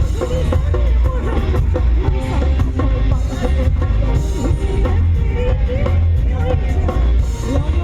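Live band music, loud, with a steady drum beat and heavy bass under a wavering melody line.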